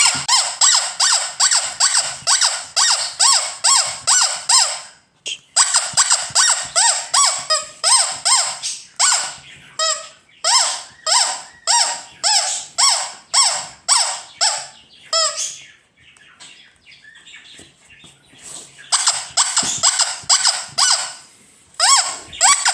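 Ledraplastic vintage rubber squeeze toy squeezed over and over, each squeeze giving a short bending squeak, about two or three a second. The squeaking pauses for about three seconds past the middle, then starts again.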